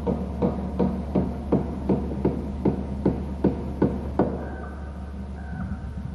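A steady series of sharp knocks, about three a second and a dozen in all, stopping about four seconds in, over a constant low hum. A few faint, steady pitched notes follow.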